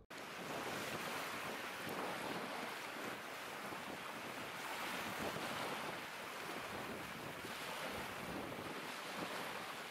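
Steady wind noise on the microphone, with a faint wash of water.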